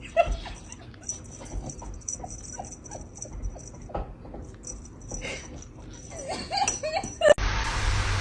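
A dog whimpering in short, high, pitched calls, coming thicker just before the end. About seven seconds in they cut off suddenly and a steady rushing noise with a low hum begins.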